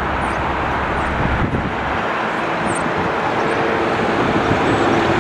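Jet airliner engine noise: a steady rushing rumble with a faint whine that comes in about halfway through.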